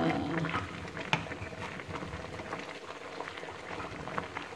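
Water boiling hard in an aluminium pot of cassava and papaya leaves, a steady bubbling with fine pops, and one sharp tap about a second in.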